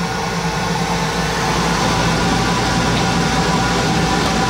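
Laser cutter running while it cuts acrylic sheet: a steady hum under an even rush of air.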